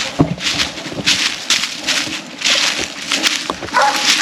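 Footsteps crunching through dry leaves and brush, with a hunting dog barking a couple of times near the end.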